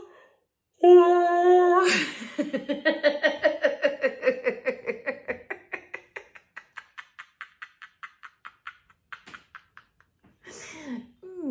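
A man's long, deliberate laughter-yoga laugh. A held vocal tone breaks into a rapid run of 'ha' pulses, about five a second, that gradually slow and fade away. A short falling vocal sound comes near the end.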